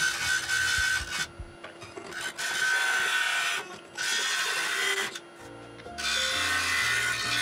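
A turning tool cutting into a Kentucky coffee tree bowl spinning on a wood lathe, in four cutting passes of a second or two each with a steady high whine, over background music.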